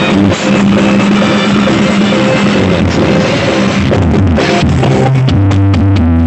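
Very loud music with drums and heavy bass blasting from a big carnival 'sound horeg' sound system. About five seconds in, deep bass notes take over.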